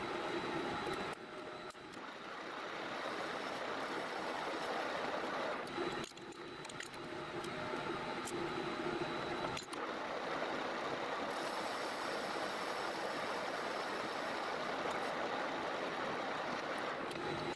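Metal lathe running, its carbide tool cutting into a spinning steel workpiece: a steady machining noise with a faint whine over it, dipping briefly three times.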